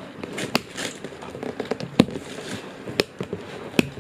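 A string of sharp clicks and knocks with softer rustling between, about four loud ones, the loudest about halfway through: the correx power panel with its newly fitted illuminated switches being handled.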